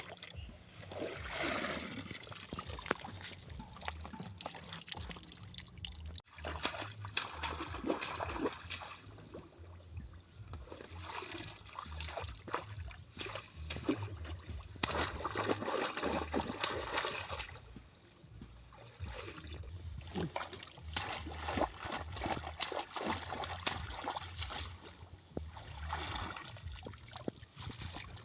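River water splashing and trickling, coming in swells every four to five seconds with small splashes in between, as water is stirred and poured during hand fishing.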